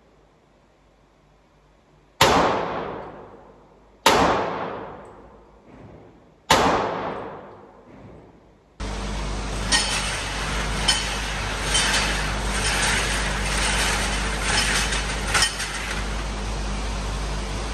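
Three handgun shots about two seconds apart, each with a long echoing decay off the walls of an indoor range. About nine seconds in, a steady rumbling noise with hiss starts abruptly and runs on.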